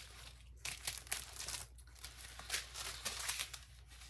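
Paper bead sample cards and clear plastic sleeves being handled and shuffled on a tabletop: irregular crinkling and rustling of plastic and card.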